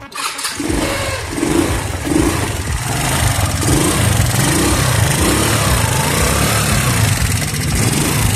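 Italika 150 scooter's single-cylinder engine running with its exhaust freshly bolted back on over a new gasket. No exhaust-leak noise comes through, the sign that the new seal holds.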